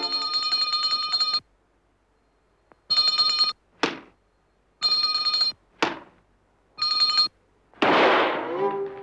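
Small brass hand bell rung in four short bursts of jingling, with pauses between them. A quick falling swish follows the second and third ringing. About eight seconds in there is a loud cartoon whack.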